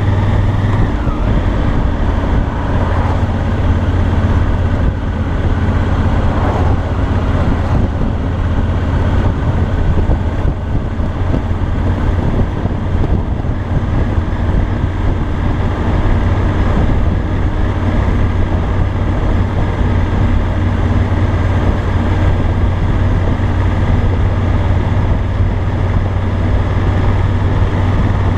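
A 2018 Honda Africa Twin Adventure Sports' parallel-twin engine and exhaust running steadily at low revs while the motorcycle is ridden slowly. A steady hiss runs beneath the engine note.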